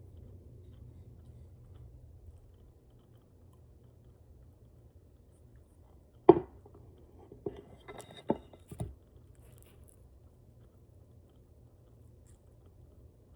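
A short run of sharp smacks and clicks from eating spicy chicken wings, the loudest about six seconds in and the rest over the next few seconds, over a low steady hum.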